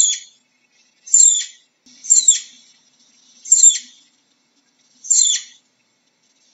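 Flying squirrel calling: five short, high-pitched chirps, each falling in pitch, repeated about every second or so.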